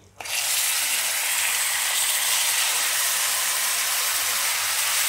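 Yogurt-marinated chicken sizzling loudly in hot oil and butter as it is tipped into the pan; the sizzle starts suddenly a fraction of a second in and then holds steady.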